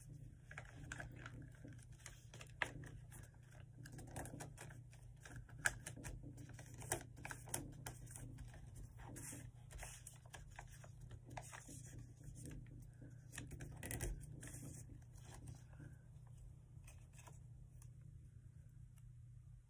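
Paper being folded and creased by hand: scattered rustles, scrapes and sharp little ticks as folds are pressed flat, a few louder taps among them. A steady low hum runs underneath.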